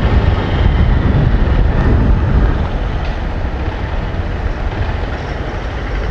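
Honda Fan 160 motorcycle's single-cylinder engine running while being ridden, with a strange engine noise, 'a bit loud', that the owner says is not normal. The sound eases slightly about two and a half seconds in.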